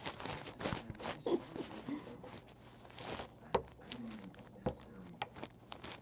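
Congo African grey parrot's beak and claws clicking and scraping on the perch and phone right at the microphone: an irregular run of sharp clicks and rustles.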